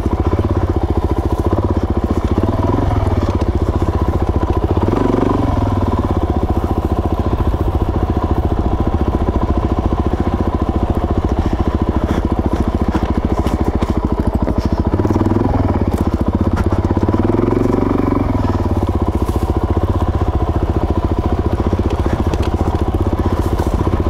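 Suzuki DRZ400S's single-cylinder four-stroke engine running under way on trail. Its pitch rises and falls a few times as the throttle is worked, with scattered short knocks and clatter.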